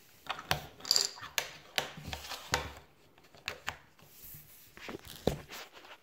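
Scattered clicks and light knocks of small plastic electronics being handled on a hard worktop, as a USB Bluetooth dongle is plugged into a USB power supply. The clicks come at uneven intervals, and a sharp one near the end is among the loudest.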